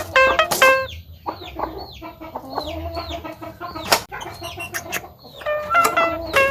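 Javan myna (jalak kebo) calling: a string of short notes, each sliding downward in pitch, with a sharp click about four seconds in.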